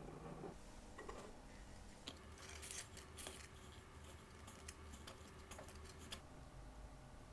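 Faint small metallic clicks and scraping as a tube tool fits a new crown tube into the watch case, with the clicks bunched between about two and six seconds in.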